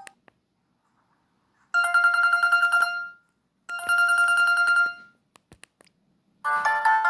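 Flip phone's speaker playing Samsung GT-E1272 ringtones: two rings of a single high warbling tone, each a little over a second long, then a few sharp clicks, and a new multi-note ringtone melody starting near the end.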